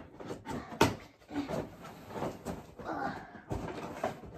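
A cardboard Funko Pop box being handled and pried open: scattered knocks, scrapes and rustles of cardboard, with a sharp snap about a second in.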